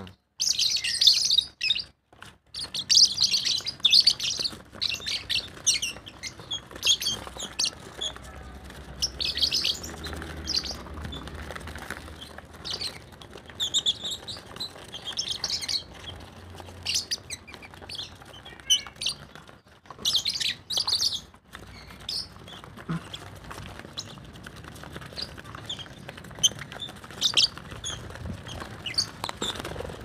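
A crowd of young caged lovebirds chirping and chattering: many short, high-pitched calls overlapping in busy flurries that swell and ease off.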